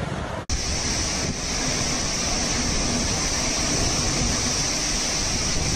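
Cyclone wind and driving rain rushing over the microphone, a loud, steady rush with a strong high hiss. The sound breaks off for an instant about half a second in, then carries on unchanged.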